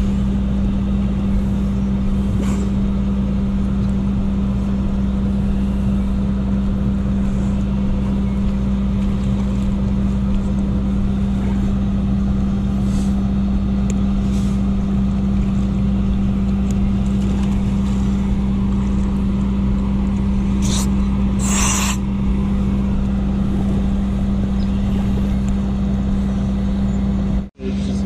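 An engine idling steadily, a constant low hum that holds without change, cut off for an instant near the end.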